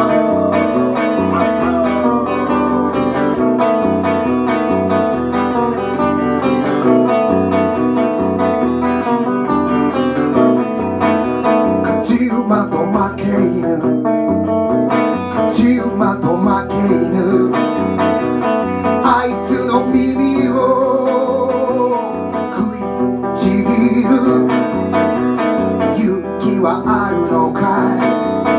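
Live solo electric guitar music: chords and lead lines with bent notes, and a man's voice singing at times, above all near the end.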